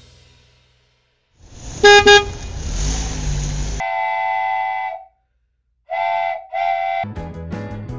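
Press-down toy train's electronic sound effect: two quick beeps, a burst of hissing noise, one long steady whistle toot, then after a pause two short toots. Background music starts near the end.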